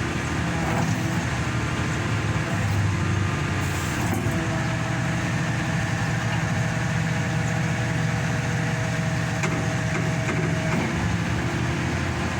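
Hydraulic static pile driver's engine and hydraulic power pack running steadily. A thin, steady whine joins about four seconds in and stops near the end.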